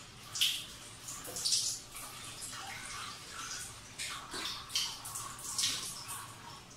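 Water splashing as hands scoop it from a bathroom sink and splash it up, in about half a dozen irregular splashes and drips.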